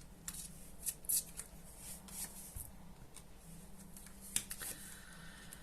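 Tarot cards being handled: faint, irregular flicks and light slaps of cards being shuffled and laid out, with one sharper snap a little past halfway.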